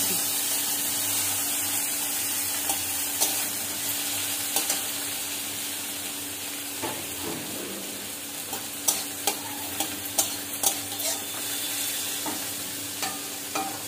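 Chopped tomato and onion sizzling in hot oil in a metal kadai while a flat metal spatula stirs them, scraping and tapping against the pan. The taps come more often in the second half.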